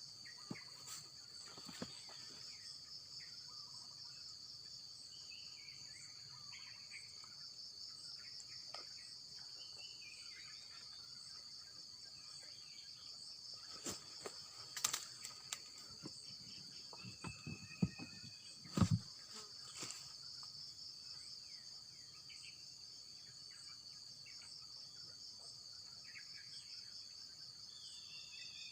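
Steady high-pitched insect chorus droning throughout, with short bird chirps now and then. A few sharp clicks and knocks fall in the middle stretch, the loudest a dull knock about 19 seconds in.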